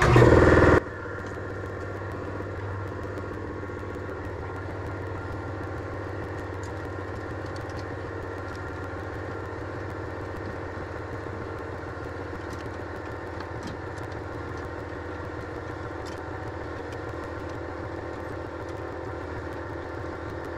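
Air compressor running steadily with an even, unchanging hum.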